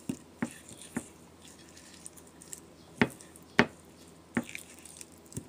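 Marinated chicken thigh pieces being pushed around a ceramic plate by hand: soft wet squishes and about six sharp clicks against the plate.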